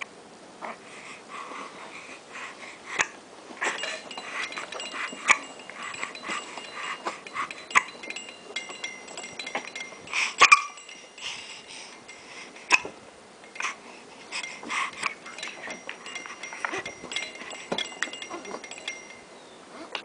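A dog hiccuping over and over: short, sudden hiccups at uneven intervals, a few of them louder than the rest.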